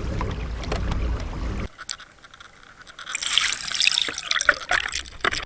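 Water trickling, dripping and bubbling close to the microphone, with dense small crackles and ticks from about three seconds in. Before that, a low rumbling noise cuts off abruptly under two seconds in.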